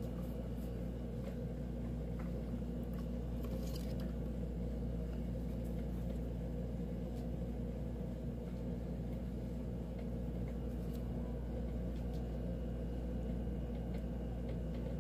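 A steady low hum without speech, with a few faint clicks near the start and about four seconds in.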